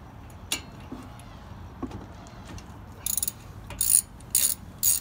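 Ratchet with a 14 mm socket loosening a brake caliper bolt: a few scattered ticks, then from about three seconds in, short strokes about every half second, each a quick run of pawl clicks.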